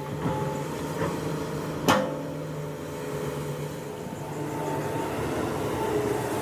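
Excavator's diesel engine running steadily, with a single sharp metallic clank about two seconds in.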